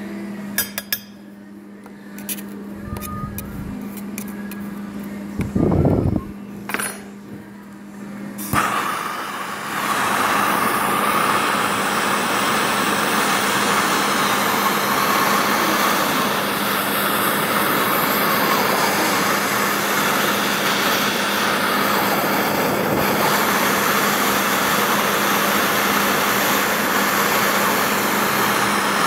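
A handheld gas torch starts about eight seconds in and burns with a steady hiss, its flame aimed into a crucible of molten lead. Before it, a few light metal clinks and short knocks over a low steady hum.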